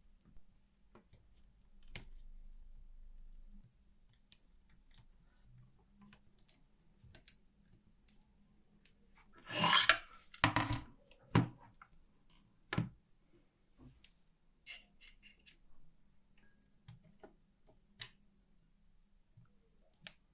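Light clicks and taps of small metal parts and hand tools being handled, with a louder scraping rustle about ten seconds in followed by two sharper knocks.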